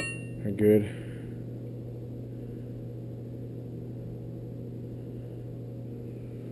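Steady background hum with no other sound apart from one spoken word.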